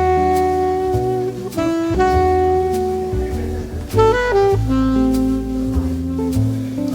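Background jazz music with a saxophone playing a slow melody over bass.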